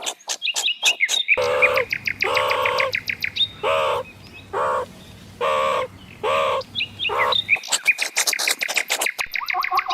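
Farmyard birds calling: rapid high falling peeps throughout, with a series of about seven short, arched, lower calls, roughly one a second, in the middle of the stretch.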